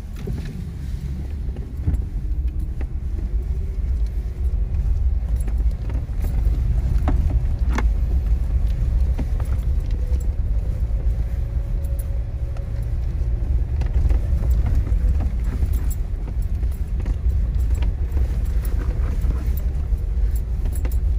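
Jeep Wrangler driving over a rough, rocky dirt trail, heard from inside the cab: a steady low engine and tyre rumble with scattered rattles and knocks from the bumpy ground.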